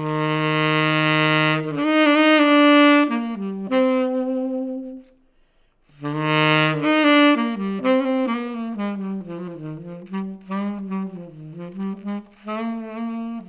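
Chateau CTS-50V tenor saxophone played solo, dry, with no mixing, EQ or effects: a long held low note and a short phrase, a pause of about a second near the middle, then a second phrase that opens on the same low note and moves on through quicker changing notes.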